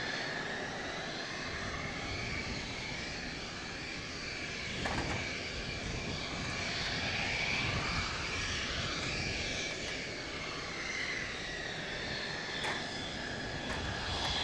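Mitsubishi F-2 fighter's single General Electric F110 turbofan at low taxi power: a steady jet rumble with a high whine that wavers up and down in pitch. Two short clicks cut through it, about five seconds in and again near the end.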